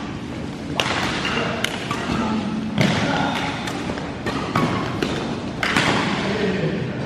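Badminton doubles rally: rackets strike the shuttlecock in a string of sharp hits about a second apart, with the players' feet thudding on the court floor.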